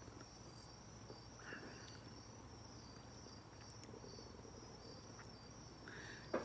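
Faint, steady high-pitched chirring of crickets over a low hum.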